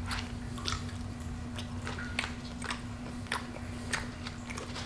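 Close-miked chewing of Baconator fries: irregular wet mouth clicks, one to a few per second, over a steady low hum.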